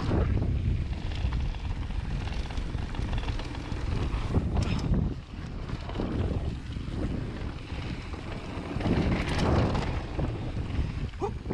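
Wind rushing over an action camera's microphone as a Vitus Sommet full-suspension mountain bike rolls fast down a dirt trail, with a low tyre rumble on the dirt and occasional knocks and rattles from the bike over bumps.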